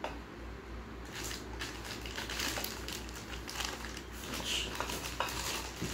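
Clear plastic packaging bag crinkling and rustling as it is handled, in irregular spells from about a second in, with a few small clicks.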